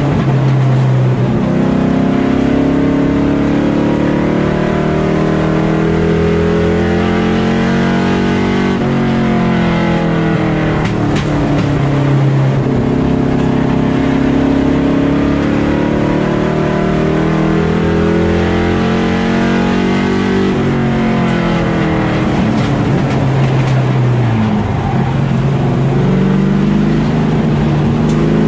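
Limited Late Model race car engine at racing speed, heard onboard from the hood: its pitch climbs for several seconds down each straightaway and falls off as the driver lifts for the turns, twice.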